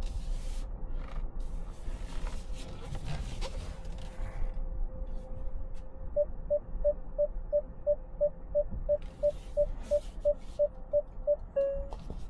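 Electronic warning beeps from the 2025 Hyundai Santa Fe, over a low rumble. About three short beeps a second start about halfway and turn into one steady tone near the end, the pattern of a parking sensor as the car closes in on an obstacle.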